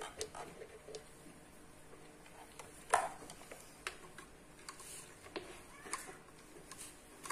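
Light plastic clicks and knocks from a mixer grinder's plastic motor base being handled and turned over by hand, with one louder knock about three seconds in.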